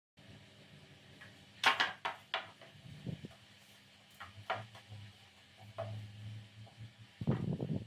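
Scattered light knocks and clicks of hard objects being handled and set down, loudest about a second and a half in and again near the end.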